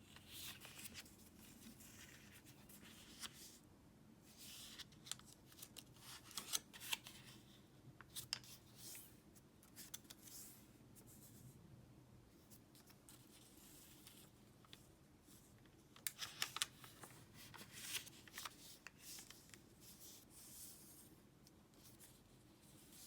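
Origami paper being folded and creased by hand: faint spells of crisp rustling and sharp little clicks, with a quieter stretch between them.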